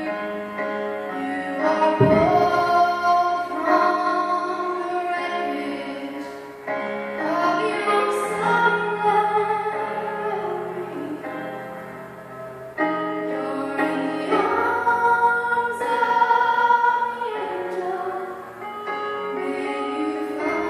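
A solo voice singing a slow song with instrumental accompaniment, holding long notes.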